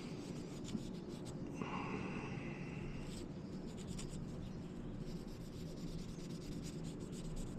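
Light hand rubbing and scratching as a small boiler part is cleaned by hand, over a steady low hum, with a brief high whine about two seconds in.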